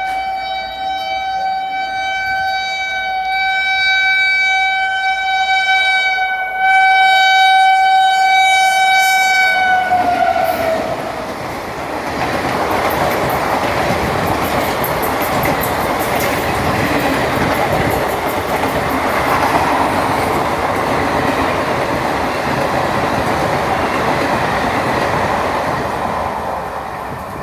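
WAP4 electric locomotive's horn sounding one long steady blast of about ten seconds, getting louder partway through and sagging in pitch as it cuts off. The train then runs past with a loud rumble and the clickety-clack of wheels over rail joints.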